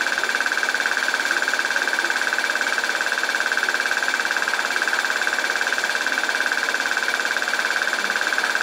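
Film projector running steadily, its mechanism giving a fast, even clatter.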